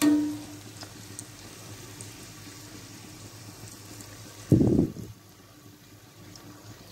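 Dal puris deep-frying in hot oil, the oil sizzling steadily as a wire skimmer moves them. At the very start the metal skimmer strikes the pan with a short ringing clang, and about four and a half seconds in there is a brief loud dull thump.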